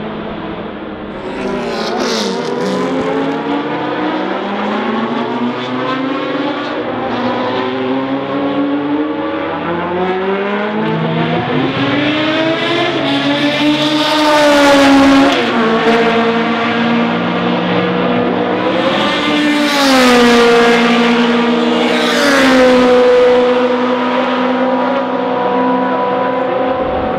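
V8 engine of the 1988 ADA Group C race car accelerating hard past at speed. Its note climbs through each gear and drops sharply at the upshifts, and it is loudest as the car goes by, about halfway through and again near the end.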